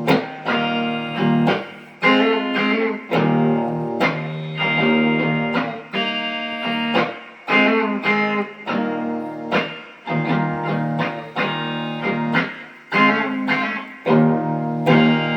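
Instrumental guitar passage of a song: chords struck in a steady rhythm about once a second, each left to ring.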